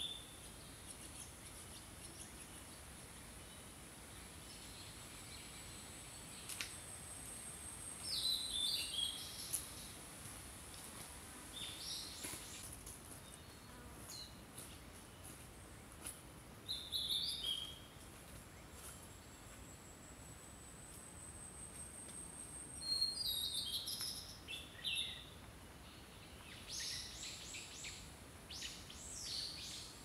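Wild songbirds singing in short, separate phrases every few seconds, over a faint hiss and a thin, steady high-pitched tone that fades in and out.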